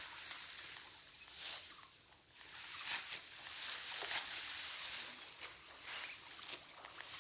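Dry rice stalks swishing and crackling as they are cut and gathered by hand with a sickle, in short strokes about once a second.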